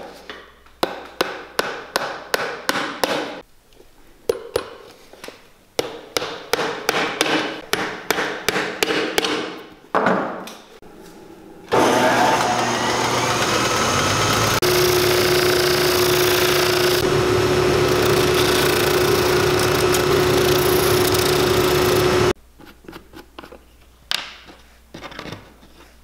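Hammer driving iron nails into a stacked leather boot heel: quick runs of ringing strikes for about ten seconds. Then a motor-driven shoe finishing machine runs loudly for about ten seconds, with a steady whine joining a few seconds in, and cuts off suddenly.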